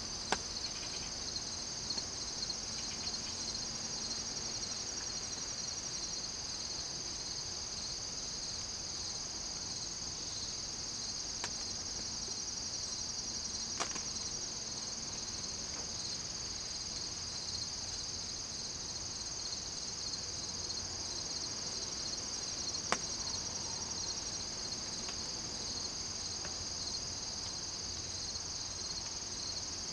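Steady chorus of field insects, crickets or katydids, trilling continuously at a high pitch. A few faint ticks come through it.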